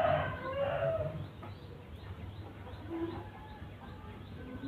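A rooster crowing, the call ending about a second in, followed by faint repeated bird chirps.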